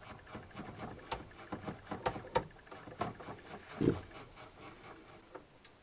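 Quiet, scattered small clicks of knob handling on a Soviet C1-112 oscilloscope, as its rotary time-per-division switch is turned through its positions, with one soft low thump about four seconds in.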